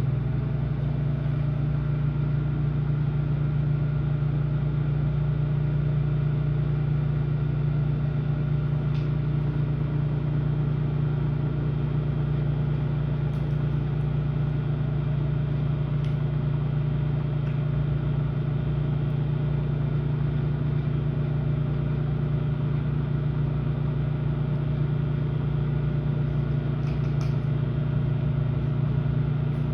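Microwave oven running: a steady low hum with several evenly spaced tones above it and an occasional faint tick.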